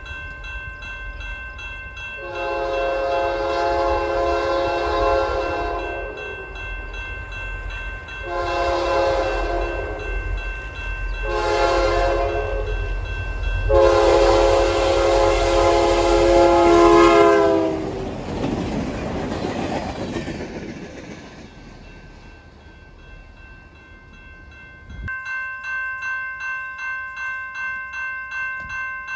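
Diesel freight locomotive's multi-chime air horn sounding four blasts, long, shorter, short, long, in the pattern of a grade-crossing signal. The last blast drops in pitch as the locomotives pass, followed by the train's rumble fading away. After a sudden cut, a grade-crossing bell rings about twice a second.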